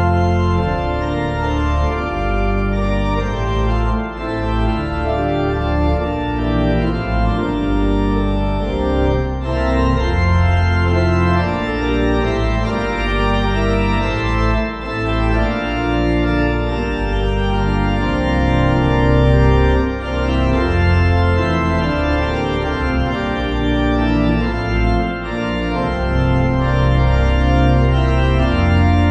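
Organ music: sustained chords over a strong, held bass line, the notes changing every second or two.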